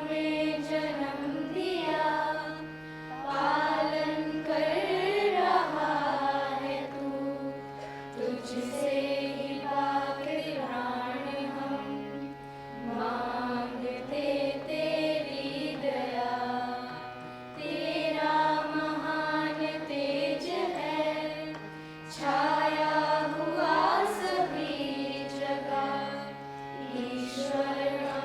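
Slow Indian devotional-style singing, a melodic chant with gliding notes over a steady held accompaniment.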